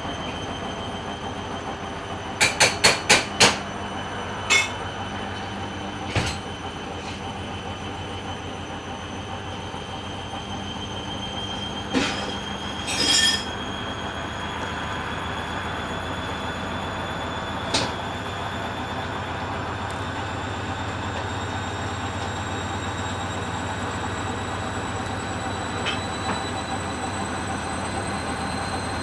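Hoover Dynamic washing machine spinning a badly unbalanced load: the motor's whine rises slowly as the drum gathers speed. Sharp knocks cut through it, five in quick succession a few seconds in and then single bangs a few seconds apart, the sign of the off-balance drum striking the cabinet.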